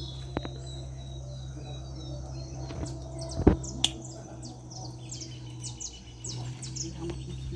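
Birds chirping in short, high, repeated chirps, mostly through the second half, over a steady low hum. A sharp knock about three and a half seconds in is the loudest sound, followed by a lighter click.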